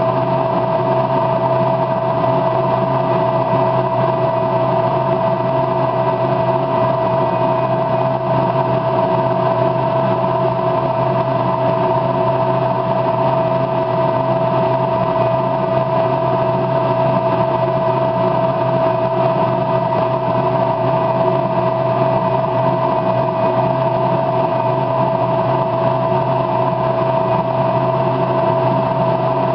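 A steady, unchanging machine-like drone with one clear held tone above it, level throughout.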